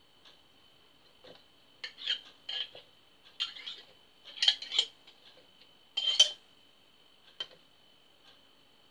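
A metal table knife clinking and scraping against a glass jar as bottled pear halves are coaxed out into a sieve, a run of irregular clinks, loudest about four and a half and six seconds in. A faint steady high whine runs underneath.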